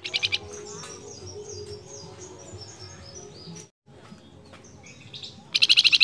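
Caged flamboyan songbird singing: a loud, fast trill of high notes at the start and again near the end, with softer high twittering notes in between. The male is singing loudly to call its female.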